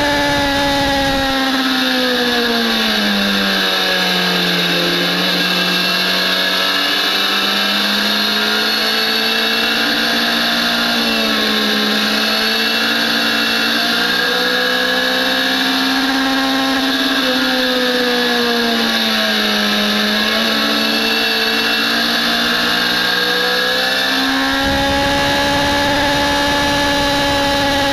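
BMW S1000RR inline-four sport bike engine heard from onboard on a racetrack: the engine note drops over the first few seconds as the bike slows, then rises and falls gently through a series of corners, and climbs again near the end. Wind rumble on the microphone fades out while the engine note is low and returns when it climbs.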